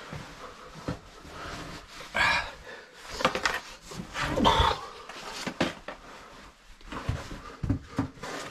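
A caver breathing hard in irregular puffs while crawling through a tight cave passage, with short scrapes and knocks of clothing and gear against the rock.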